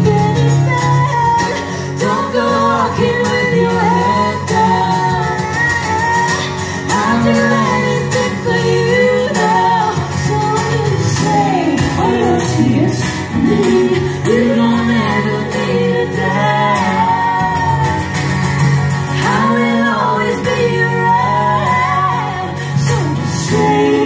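Live band performance in a concert hall: acoustic guitars strummed under women singing the melody.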